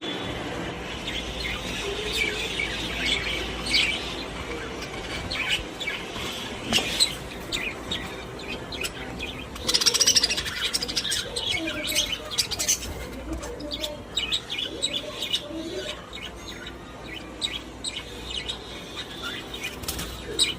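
Pet budgerigars chirping and chattering in a continuous run of short calls, with a louder flurry about halfway through.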